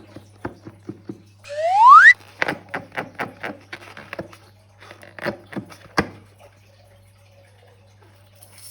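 Slime being squeezed and handled, giving a string of sticky clicks and squelches. About a second and a half in comes a single rising rubbery squeak, the loudest sound. The clicking stops about six seconds in.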